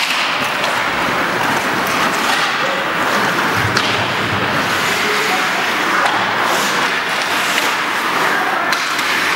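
Ice hockey play: a steady scraping noise of skates on the ice, with scattered knocks of sticks, puck and boards, the heaviest a thump a little under four seconds in.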